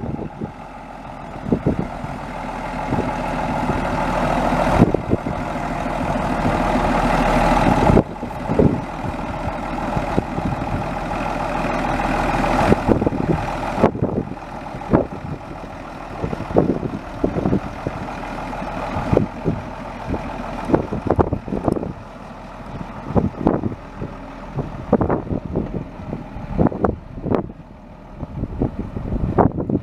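The Case 504BDT 8.3-litre six-cylinder turbo diesel engine of a 1975 Case 1370 tractor running. It grows steadily louder over several seconds, drops off suddenly about eight seconds in and builds again, then after about fourteen seconds runs lower with many short sharp thumps.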